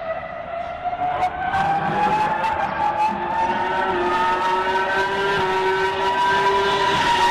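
High-pitched racing-car engine note, climbing slowly and steadily in pitch as it grows louder.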